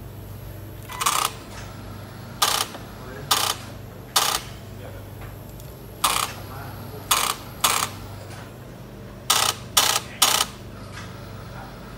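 Handling noise from hands working among cables, connectors and a plastic bag under an industrial sewing machine's table: about ten short, sharp clicks and crackles at irregular intervals, three of them close together near the end, over a steady low hum.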